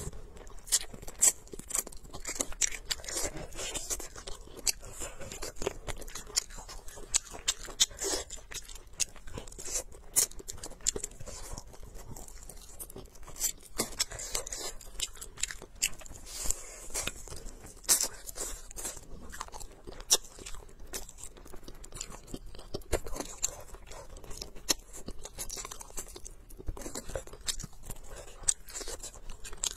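Close-up eating sounds of a person gnawing and chewing spicy cured duck leg: frequent, irregular sharp crunches and chewing clicks.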